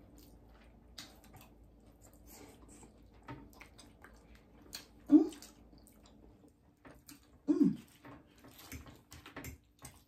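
Close-miked eating sounds: wet chewing and small mouth clicks from people eating fried chicken and alfredo pasta. Two brief hummed sounds, about five and seven and a half seconds in, are the loudest moments, over a faint steady hum.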